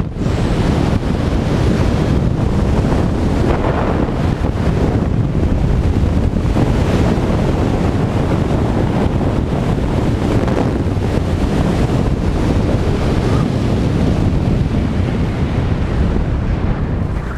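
Wind rushing over the camera microphone as a parachutist flies a canopy down toward landing: a loud, steady rush that eases off right at the end.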